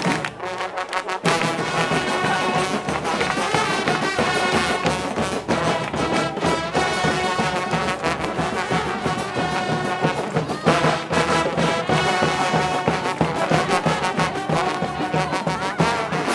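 Street brass band playing loudly, with brass horns carrying the tune; the playing gets fuller about a second in.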